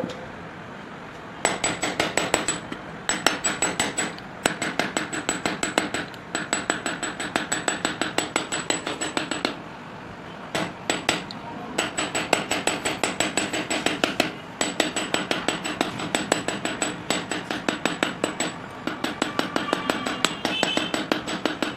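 Small hammer striking a thin silver strip on a steel bench block: runs of quick metal-on-metal taps, several a second, broken by short pauses, the longest about ten seconds in.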